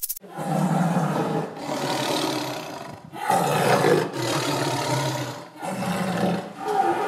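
Lion roaring: a string of about six rough calls, each a second or so long, with short breaks between.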